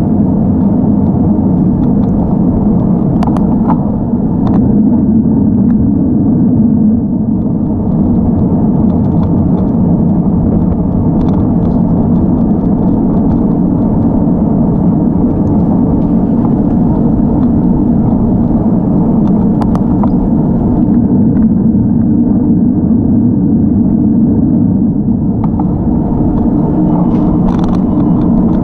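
Steady low rush of wind and road rumble on a bicycle-mounted camera's microphone while riding, with a few faint clicks and knocks scattered through it.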